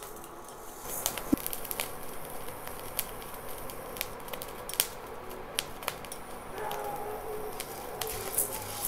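Jowar (sorghum) kernels popping in a dry pan on low heat: scattered sharp pops at irregular intervals, a few of them louder than the rest.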